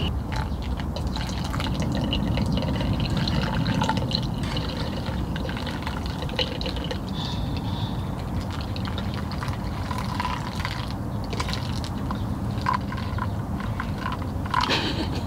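Hot water poured in a thin stream from a stainless steel mug onto ground coffee in a paper-filter pour-over dripper, trickling and dripping through. A couple of light clicks near the end.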